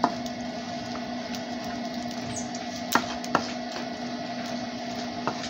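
Wooden spatula stirring chopped onion and green pepper in a nonstick frying pan: a few sharp taps of the spatula against the pan, two close together about halfway through, over a steady low hum.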